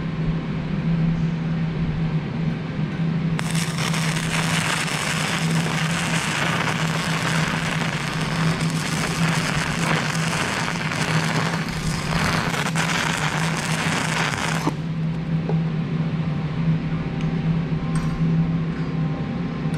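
Shielded metal arc (stick) welding with a 3.2 mm E6010 electrode on DC electrode-positive at about 75–85 amps: the crackling, spattering arc of a whip-and-push root pass on a horizontal groove joint in mild steel plate, from about three seconds in to about fifteen seconds, cutting off abruptly. A steady low hum runs under it throughout.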